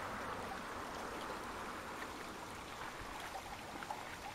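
Shallow stream trickling steadily, a soft even rush of running water.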